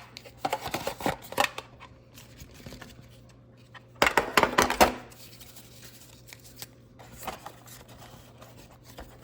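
Baseball trading cards and their packaging being handled: scattered rustles and clicks, with a busier burst of rustling about four seconds in.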